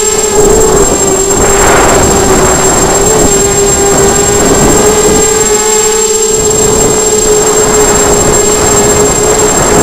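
ZMR250 racing quadcopter's brushless motors and propellers whining at a steady pitch, heard close up from the camera mounted on the craft. There are bursts of rushing noise about a second and a half in.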